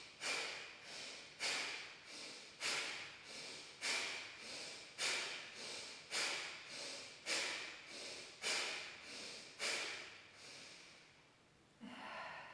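A woman doing Kapalbhati breathing: nine sharp, forceful exhalations through the nose, evenly paced about one a second, each followed by a quieter passive inhalation. The pumps stop about ten seconds in.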